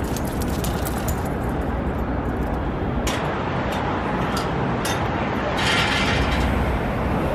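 Steady outdoor traffic noise with wind, and a few sharp metallic clinks about halfway through.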